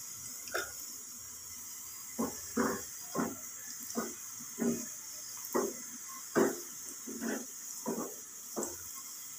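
Sliced onions frying in oil in a small aluminium pan with a steady faint sizzle; from about two seconds in, a wooden spoon stirs them, scraping and knocking against the pan about ten times, roughly once every two-thirds of a second.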